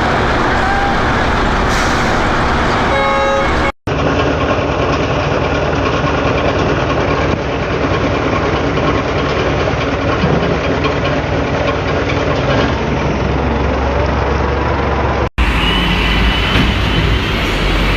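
Heavy truck engines running loud and steady across three spliced clips, with two abrupt cuts. There is a short horn toot just before the first cut.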